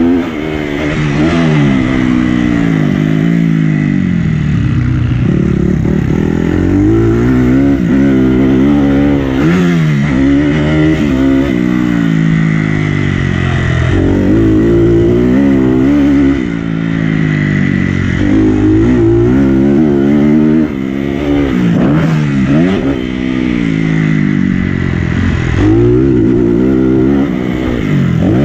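Dirt bike engine revving hard and backing off over and over, its pitch climbing and dropping every second or two as the rider works the throttle and gears, heard from on the bike while it is ridden around a dirt track.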